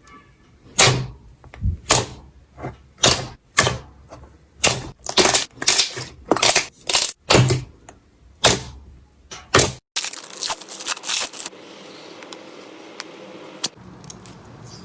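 Clear slime being pressed and squeezed by hand, giving a run of sharp crackling, popping squelches about once or twice a second. About ten seconds in it cuts off suddenly to a softer crackle and then a faint steady hiss.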